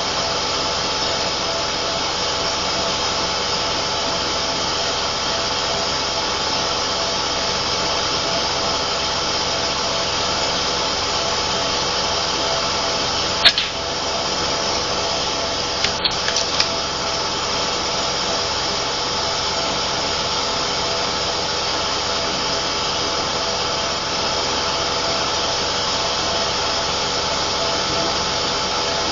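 Milking compressor running with a steady whine and hiss. About thirteen seconds in there is a single sharp crack from a .177 Air Arms S510 PCP air rifle shot. A few small clicks follow a few seconds later.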